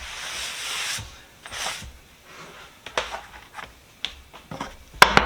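A short rubbing, brushing sound, then scattered light knocks and clicks of things being handled on a workbench, with a sharp click near the end.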